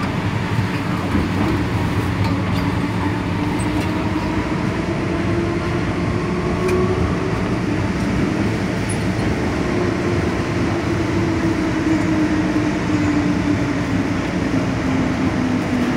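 Inside an MTR M-Train subway car running through a tunnel: a steady rumble of wheels and motors, with a low hum that slowly rises and falls in pitch.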